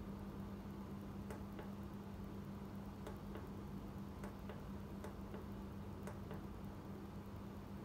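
Electric fireplace heater unit running: a steady low hum with light ticks, often in pairs, about once a second.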